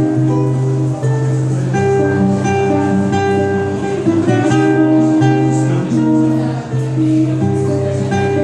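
Solo acoustic guitar playing live: picked chords that change every second or so over a low bass note held for several seconds at a time.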